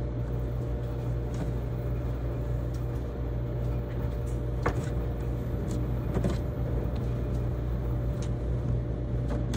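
Commercial tumble dryers running in a laundry room: a steady low hum, with a few light clicks and knocks over it.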